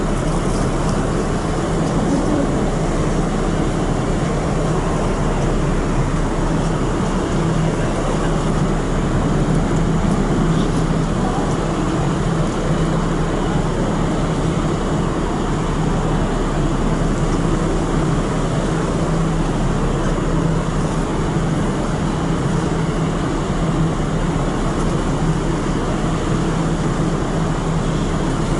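Steady drone of the ferry Ogasawara Maru running at sea: a constant low engine hum under an even rushing noise of wind and water.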